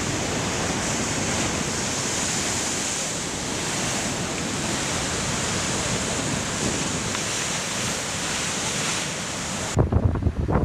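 Steady roar of heavy ocean surf breaking. Just under ten seconds in, it cuts to gusty wind buffeting the microphone.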